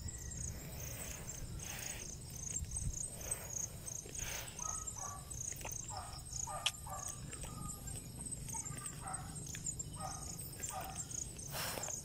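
Night insects calling: a steady, evenly repeating high-pitched pulsing over a high whine. Short, lower chirping calls from other animals are scattered through it, along with the occasional scuff of footsteps on grass.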